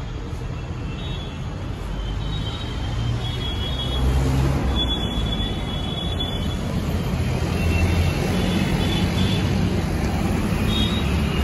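Busy street traffic: the engines of motorbikes, auto-rickshaws and buses running past in a steady rumble that grows louder about four seconds in, with short high tones coming and going.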